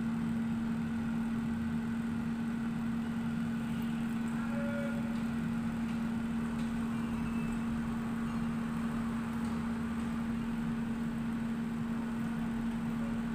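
Philips air fryer running: a steady hum from its fan motor, one unchanging tone with a haze of blowing air around it.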